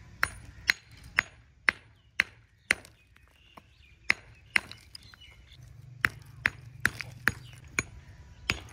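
Hammer striking old fired-clay bricks, crushing them into rubble, in sharp ringing blows about two a second, with two short pauses midway.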